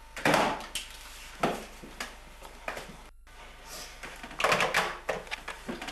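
Plastic telephone handsets being handled, with several sharp knocks and clatters, the loudest just after the start and a cluster of them near the end. The sound drops out completely for a moment about three seconds in.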